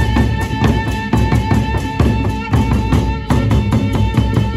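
Gendang beleq ensemble playing: large two-headed barrel drums struck in a fast, even rhythm, with a held melodic line sounding over the drumming.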